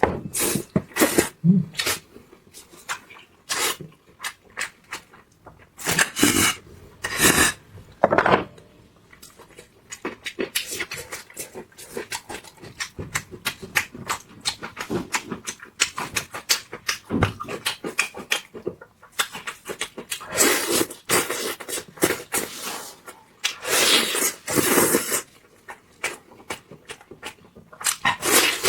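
Close-miked mouth sounds of someone eating: irregular wet smacks, clicks and chewing noises, with a few longer slurping bursts.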